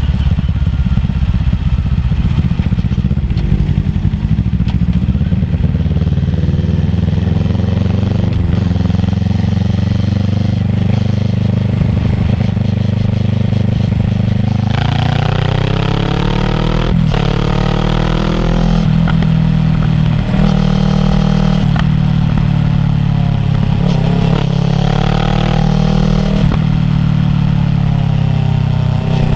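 Kawasaki ER-6f's parallel-twin engine through a Yoshimura full-system exhaust while riding. It runs as a steady low rumble for the first half, then from about halfway revs up several times, each rising note broken off by a gear change.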